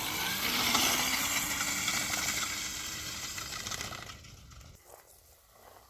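Pit bike riding off, its sound loudest about a second in and fading away over the next few seconds until it is gone.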